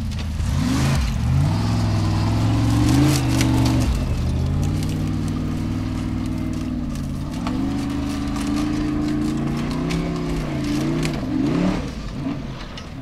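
A Formula Offroad unlimited-class hill-climb buggy's engine at hard throttle on a steep sand slope. Its pitch rises and falls with throttle changes, dropping about four seconds in, climbing again about halfway through, and swinging up and down quickly near the end.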